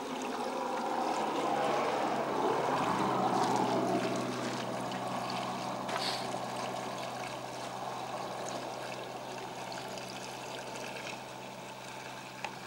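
Paraffin fuel pouring from a jerrycan through a funnel into a helicopter's fuel tank: a steady gurgling stream, strongest in the first few seconds and then a little lighter. A steady low hum runs beneath it.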